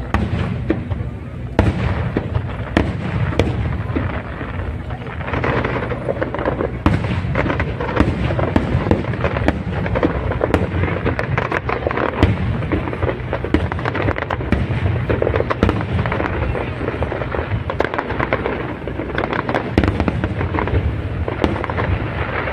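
Aerial fireworks display going off continuously: a dense stream of bangs and crackling with no let-up, over a low rumble.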